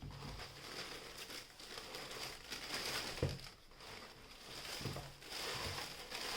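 Shoe packaging being handled: continuous crinkling and rustling of wrapping, with a few soft knocks in the middle and later on.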